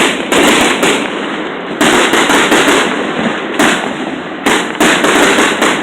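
Fireworks display: a rapid series of loud bangs from bursting aerial shells, coming in quick clusters of two or three every second or two.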